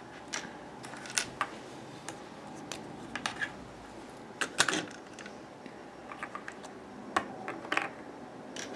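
Light, irregular clicks and taps of small plastic toy pieces being handled, a few of them sharper knocks.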